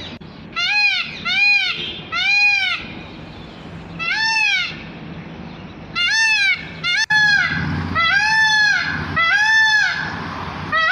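Peafowl calling: a series of about eight short, loud honking calls, each rising then falling in pitch, coming in uneven groups.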